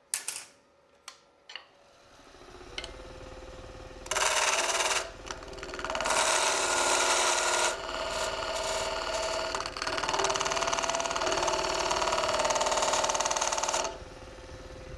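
A wood lathe coming up to speed about two seconds in, a few clicks before that, then a turning chisel cutting a tenon on the spinning ash blank: a loud, rough cutting noise in a short spell about four seconds in and a long one from about six seconds until near the end, with the lathe still running after the cut stops.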